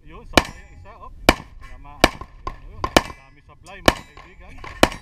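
Pistol fired six times at a steady pace of about one shot a second.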